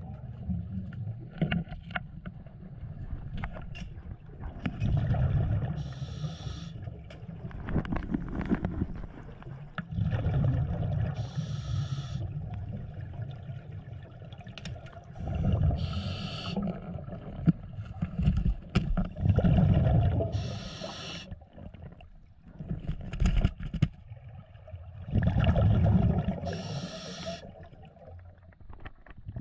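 A scuba diver breathing through a regulator underwater: a rush of exhaled bubbles and a short hiss from the regulator, repeating about every five seconds, with scattered small knocks between.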